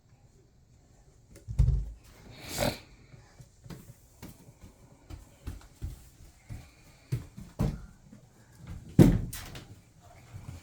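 A bathroom door being pushed and bumped, thumping and knocking against its frame several times. The loudest thump comes about nine seconds in.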